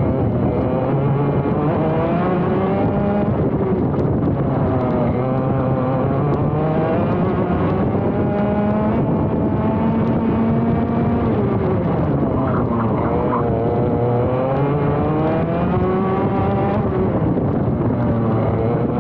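ROK GP Junior two-stroke kart engine at racing speed, heard close up from onboard: its revs climb and drop over and over as the kart accelerates out of corners and lifts into the next.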